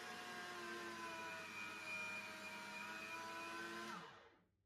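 Electric meat grinder motor running with a steady whine as cookie dough is pushed through its auger. About four seconds in it is switched off and its whine drops in pitch and dies away.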